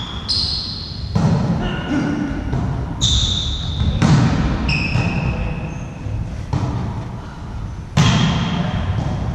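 A volleyball rally in a gym hall: the ball is struck several times by hands and forearms, each hit a sharp slap that echoes in the hall, the clearest about eight seconds in. Short high squeaks of sneakers on the hall floor come between the hits.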